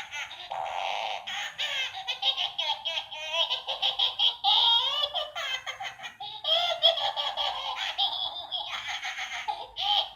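Battery-powered animatronic toy monkey (IMC Toys Fufris) playing its recorded baby-like giggling and laughing through a small speaker, thin with no bass, in quick bursts that run on one after another.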